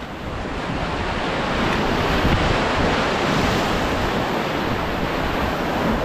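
Whitewater of a river rapid rushing and splashing around an inflatable raft, a dense, steady wash of water noise that grows louder over the first second or two, with wind buffeting the action camera's microphone.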